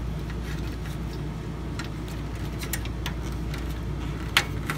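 Light plastic clicks and taps as a new desktop power-button switch is handled and pushed into its mount on the metal case, with one sharper click near the end, over a steady low hum.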